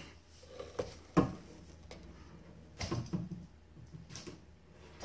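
A few light knocks and clunks of handling, the loudest about a second in and a small cluster a little before the middle, over a steady low hum.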